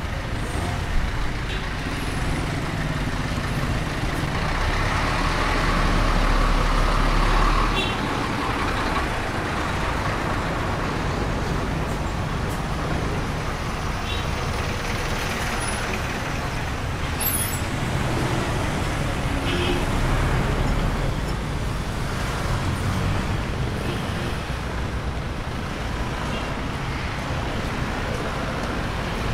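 Street traffic: a steady mix of engines and tyre noise, with a vehicle passing louder about five seconds in and another about twenty seconds in.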